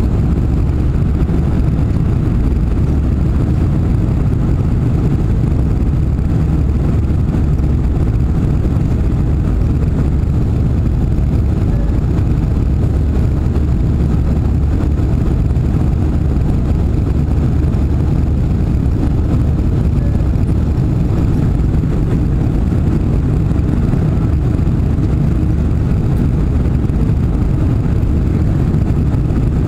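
Steady low rumble of engine and airflow noise inside the passenger cabin of a four-engined Boeing 747-400 climbing out after takeoff.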